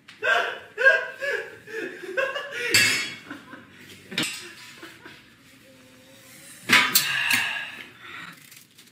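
Several young men laughing and calling out, with a single sharp knock about four seconds in and a loud outburst of laughter a little before the end.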